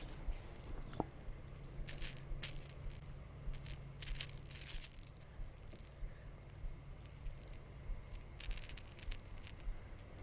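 Short bursts of light metallic clicking and rattling, coming in several clusters, over a faint low hum.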